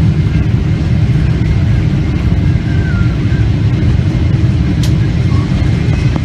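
Steady low rumble of engine and airflow noise inside the cabin of a Boeing 737 on final approach, with a faint steady high whine and a brief click about five seconds in.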